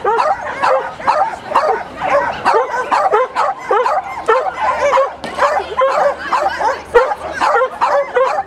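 Dog barking and yipping continuously in rapid short barks, several a second.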